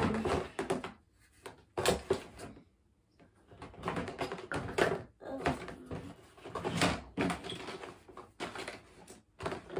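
Plastic bottles, toys and packaging rattling and knocking in a clear plastic storage tub as they are rummaged through and lifted out, in irregular bursts with short pauses.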